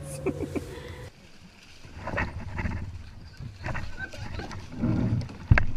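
Paddles and bodies knocking against plastic kayaks, with water sloshing as a monkey scrambles onto a kayaker; scattered knocks and thuds, with a sharp knock a little before the end.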